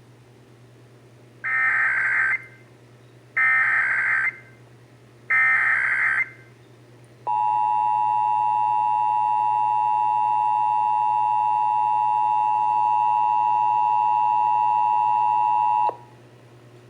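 Emergency Alert System SAME header: three one-second bursts of warbling digital data tones about two seconds apart. They are followed by the EAS two-tone attention signal, held steady for about eight and a half seconds and cutting off suddenly. A faint low hum runs underneath.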